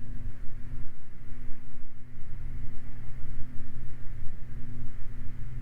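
Beechcraft Baron's twin piston engines and propellers droning steadily in the cabin at reduced approach power.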